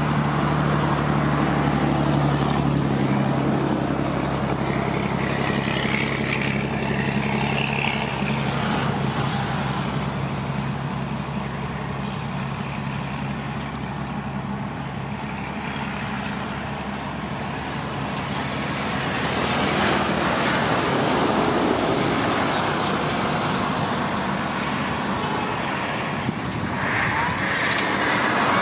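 Heavy diesel engines of an excavator and dump trucks running as the excavator pushes a dump truck stuck in the mud. A steady low engine hum gives way to a rougher, noisier rumble about halfway through.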